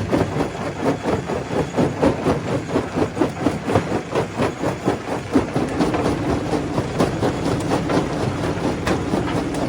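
Stone crusher running, its drive making a steady hum under a dense, uneven clatter of rocks knocking and cracking as they are crushed.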